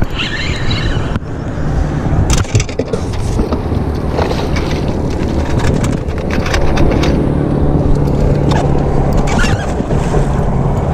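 Rubbing and knocks of a hand against a body-worn action camera, with a dense steady rumble, while a hooked bass is fought and reeled to the side of a bass boat; a low steady hum comes in about halfway through.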